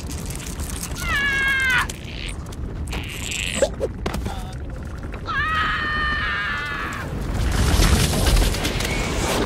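An animated squirrel gives two high, squealing cries, about a second in and again about five seconds in, with a few sharp cracks between. From about seven seconds a deep, loud crashing rumble of breaking ice builds.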